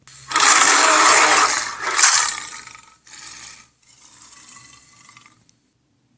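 Acrocanthosaurus roar sound effect: a long, loud raspy hissing roar, followed by two shorter, quieter rasping growls that trail off.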